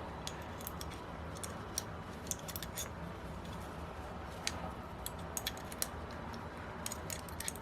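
Faint, scattered light metallic clicks and ticks as a YS-45FS model engine's connecting rod and crankshaft are worked by hand to free the rod from the crank pin, over a low steady hum.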